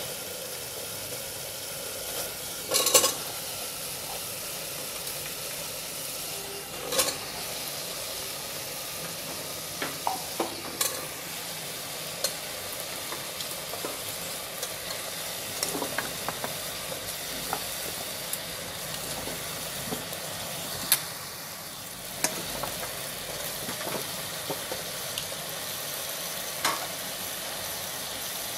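Tomato-onion masala sizzling steadily in an aluminium pressure cooker as chunks of pumpkin are added and stirred in with a steel ladle. A few sharp knocks against the pot stand out over the sizzle.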